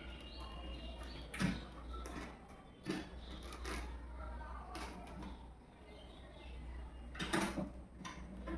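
Desktop PC case screws being done up on the refitted side panel: creaking and scraping of metal parts with a few sharp knocks.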